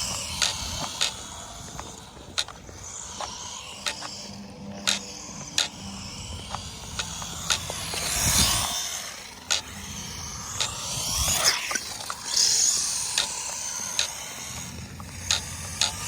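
Traxxas Mini E-Revo RC truck on skatepark concrete: scattered sharp plastic clicks and knocks, with a few short swells of rolling and scraping noise about eight seconds in and again a few seconds later.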